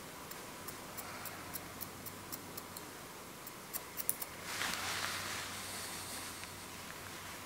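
Hair-cutting scissors snipping short grey hair, about three crisp snips a second for the first four seconds. After that comes a couple of seconds of rustling as a comb is drawn through the hair.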